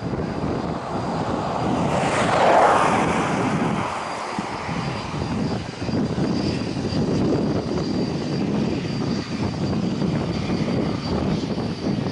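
Airbus A319 airliner's jet engines on final approach, a rough steady rumble that swells loudest about two to three seconds in, with a thin high whine from about halfway through.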